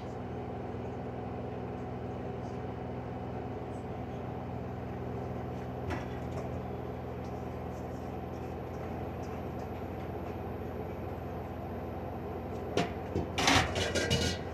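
LG washing machine on its cotton spin cycle, the drum spinning at speed with a steady hum of several tones. Near the end, a cluster of loud clicks and knocks.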